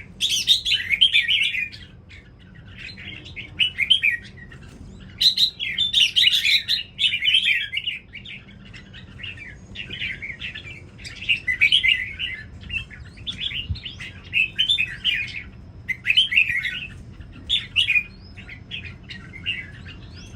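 Red-whiskered bulbul singing in repeated bursts of fast, chattering song, each phrase about a second long with short pauses between.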